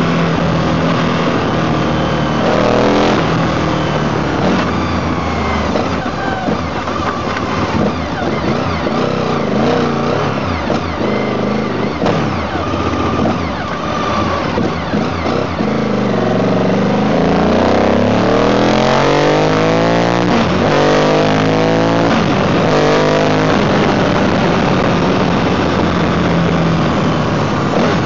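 Mondial motorcycle engine pulling through the gears on the road, its revs rising and dropping several times as it accelerates and shifts, over steady wind and road noise.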